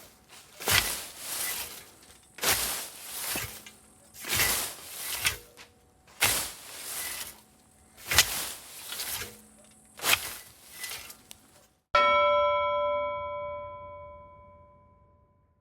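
A hand scythe swishing through grass in six rhythmic strokes, about one every two seconds. Near the end the swishing stops abruptly and a metallic ringing tone sounds once and fades slowly.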